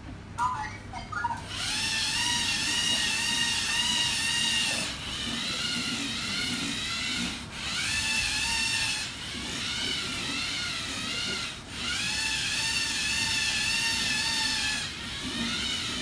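Small electric motors of a Lego Mindstorms robot vacuum cleaner whining steadily with a slightly wavering pitch, starting after a few short blips and dipping briefly every few seconds as it drives about.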